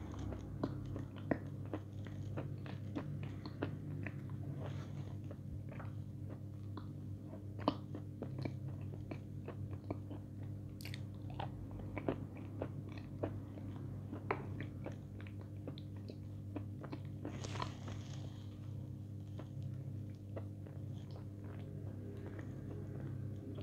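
Close-up crunching and chewing of a white chalky block dipped in chocolate paste: many crisp bites and chews in quick irregular succession over a steady low hum.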